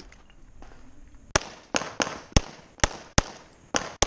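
Handgun shots fired in a fast competition string: about eight sharp shots, two to three a second at uneven intervals, starting about a second and a half in.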